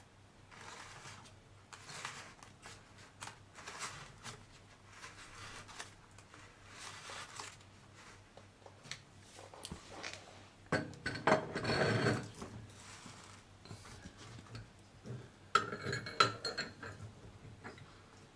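A new immersion heater element being screwed by hand into the threaded boss of a hot water cylinder: soft rubbing scrapes about once a second, then a louder scrape near the middle. Near the end come sharp metallic clinks and rattles of a metal tool against the heater.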